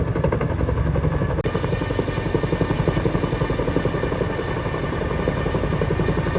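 A loud mechanical running sound with a fast, steady pulsing beat, which changes abruptly about a second and a half in.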